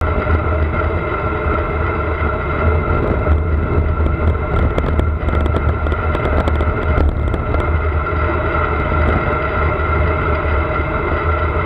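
Steady wind and road rumble on a handlebar-mounted action camera's microphone as a fixed-gear bicycle rides along a road with traffic, with a few light ticks and rattles around the middle.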